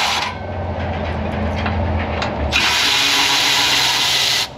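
Cordless electric ratchet running in two bursts as it backs out bolts: a short run that stops just after the start, then a longer run from about halfway to near the end, with small handling clicks in between.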